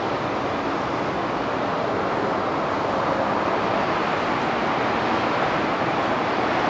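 Steady airport apron noise: an even roar of aircraft engines with no distinct events.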